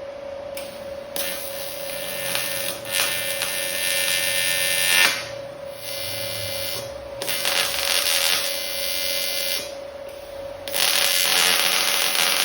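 Electric welding arc buzzing in three long bursts that start and stop abruptly, tacking the seams of a 16-gauge sheet-metal column. A faint steady hum runs underneath.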